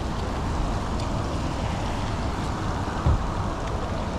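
Steady rain and wind noise on the microphone with a low rumble, and a single dull thump about three seconds in.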